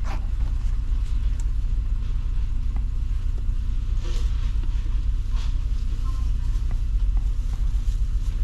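Steady low rumble of a Honda car idling, heard from inside the cabin, with a few faint clicks and a brief rustle about four seconds in.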